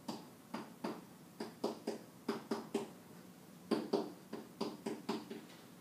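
Marker writing on a whiteboard: a quick run of short strokes and taps as words are written, with a brief pause in the middle.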